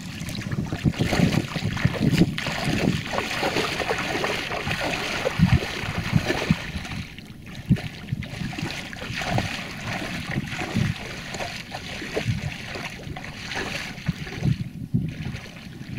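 Shallow muddy water splashing and sloshing as a person gets up and wades through it, calf-deep, with wind buffeting the microphone.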